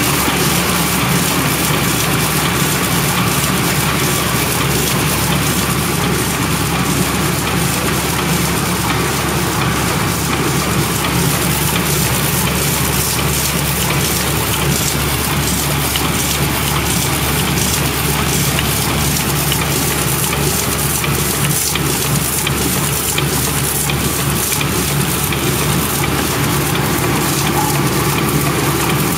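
Heidelberg Quickmaster DI 46 Plus four-colour offset litho press running at a steady speed: a loud, even, dense mechanical clatter over a constant low hum.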